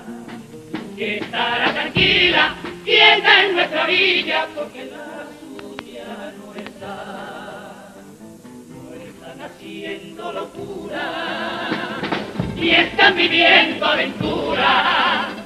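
Male carnival comparsa chorus singing a Cádiz pasodoble in several voices, accompanied by Spanish guitars. The singing swells loud twice, about a second in and again about twelve seconds in, and is softer in between.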